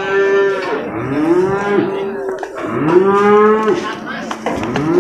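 Young water buffalo calling: three long bawls in a row, each rising and then sliding down at the end.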